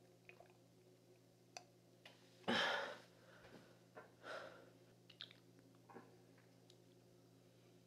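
A man's heavy breath or sigh about two and a half seconds in and a softer one around four seconds, with a few faint clicks over a steady low room hum.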